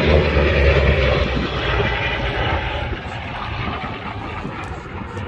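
Two vintage propeller fighters flying past in formation, their piston engines droning, loudest at the start and slowly fading as they pass.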